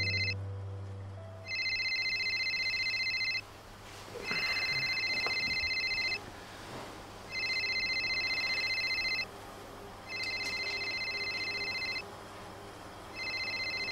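Mobile phone ringing with an electronic ringtone: a high trilling tone in bursts of about two seconds, about a second apart, repeating five times. The call comes from a withheld number.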